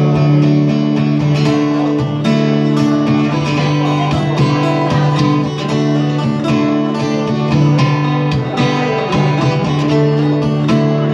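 Two acoustic guitars playing an instrumental passage together, with steady strummed chords and no singing.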